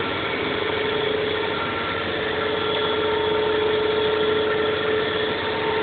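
Steady hum of running shop machinery, holding several constant tones with no change in level.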